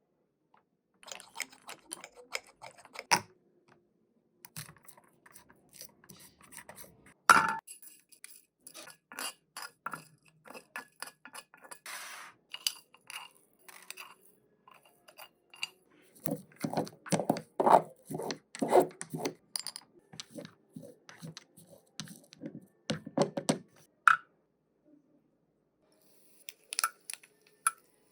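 Miniature kitchen utensils clinking, tapping and scraping in a string of short, irregular knocks, with a run of quicker, louder strokes about two-thirds of the way through.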